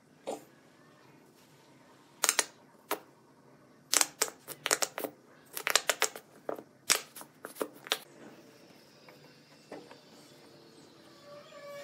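Plastic wood-glue bottle being squeezed, its nozzle sputtering and popping in a quick, irregular run of sharp little spurts for several seconds, then quieter.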